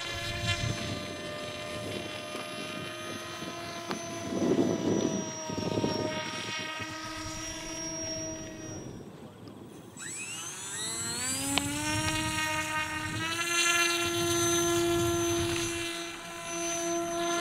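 Electric motor and propeller of a radio-controlled model whining at a steady pitch, fading out about nine seconds in, then spooling up again with a sharply rising whine about ten seconds in and holding steady.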